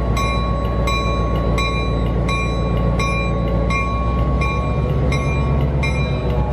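Locomotive bell ringing steadily, about two strokes a second, over a steady low rumble of locomotive machinery.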